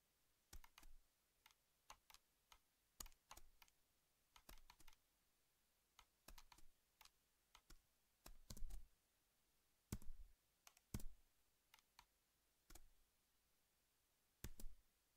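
Faint, irregular clicking of a computer keyboard and mouse, scattered single clicks and quick pairs over near silence, a few louder ones about two-thirds of the way through.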